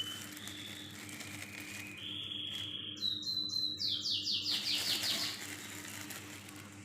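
Small birds chirping: a few thin whistled notes, then a quick run of repeated high chirps about three to five seconds in.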